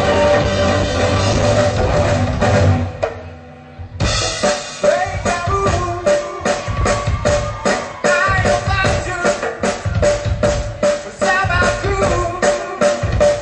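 A percussion band playing: the full sound drops away for about a second, three seconds in, then the drums come back in with a quick run of hits over a pitched melody.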